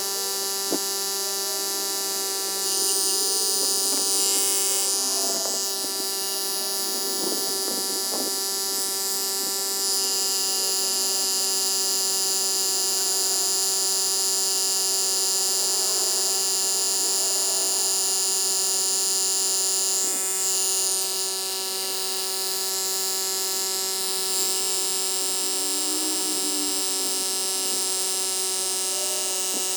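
Xiaomi Mijia portable air compressor running as it inflates a tyre: a steady electric pump hum held at one even pitch.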